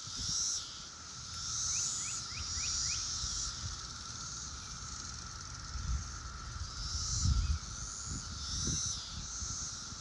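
Chorus of Brood X periodical cicadas: a steady droning whine underneath, with higher buzzing calls that swell and fade every second or two. Low rumbles of wind on the microphone come and go, loudest about seven seconds in.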